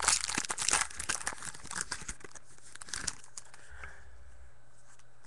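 A shiny trading-card pack wrapper being torn open and crinkled by hand, busiest in the first two seconds, then fainter rustling with a few light ticks as the cards come out.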